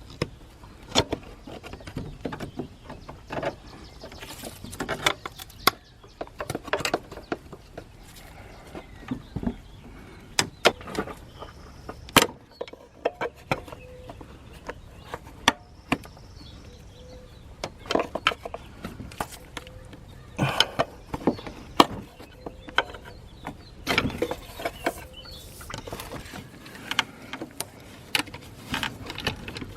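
Irregular clicks, clinks and knocks of hand tools and parts being handled in a car's engine bay, a sharp tap every second or so with short clusters of clatter.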